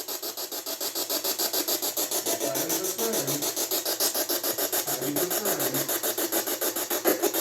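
Rapid pulsing electronic static, about eight pulses a second, with faint low tones sliding up and down underneath, typical of a ghost-hunting detector's audio output.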